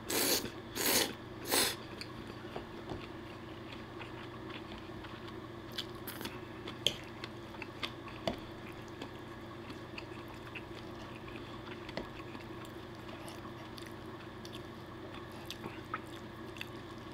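A man slurping peperoncino pasta noodles, three quick loud slurps in the first two seconds, then quieter chewing with a few faint clicks.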